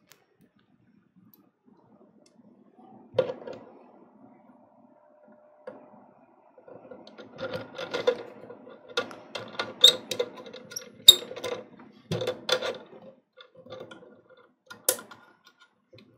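A metal gooseneck lamp arm being handled and twisted into its threaded socket on an LED spot light base. There is a knock about three seconds in, then a run of irregular clicks and scrapes, and one sharp click near the end.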